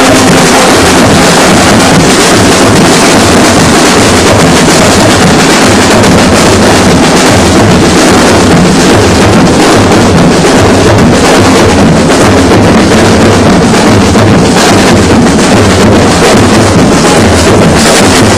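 Carnival drum corps of large slung bass drums and other drums beating a dense, driving rhythm close by, so loud that the recording is overloaded and distorted.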